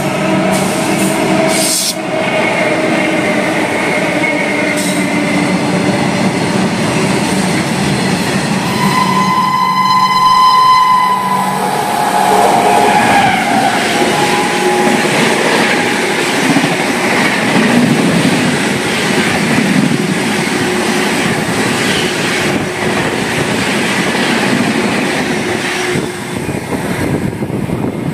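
A train passing close on the adjacent track, its Indian Railways electric locomotive sounding one horn blast of about two seconds roughly ten seconds in. Then the coaches rush by with a loud rumble and the clatter of wheels over rail joints, which thins out near the end.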